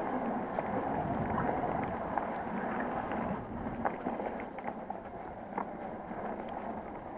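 Electric mountain bike riding fast down a wet dirt woodland trail: tyres rolling over damp ground with wind rush on the microphone and frequent small rattles and knocks from the bike over bumps. The rush eases a little about halfway through.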